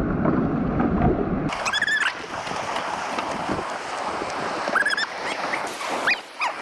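Rushing whitewater of a fast, silty river, turning hissier about one and a half seconds in. A few short high-pitched calls sound over it, one near the start and several near the end.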